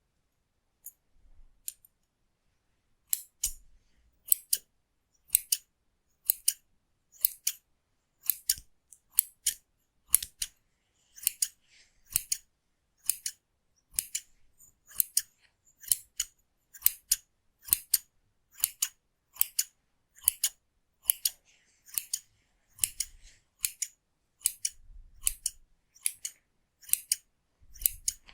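Hair-cutting scissors snipping through hair in a steady run of crisp snips about one a second, after a few scattered snips in the first couple of seconds.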